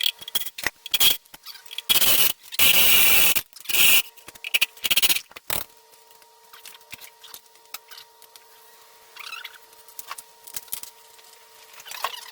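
Irregular scraping and clicking, with a loud run of scraping from about two to four seconds in and another short burst around five seconds, then only faint scattered ticks over a steady hum.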